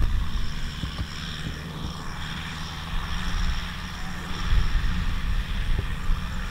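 Kubota M6040 tractor's four-cylinder diesel engine running, a low continuous rumble as the tractor moves slowly.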